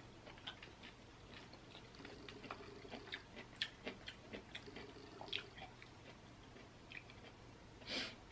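Quiet chewing with scattered soft, wet mouth clicks, and a short breath near the end.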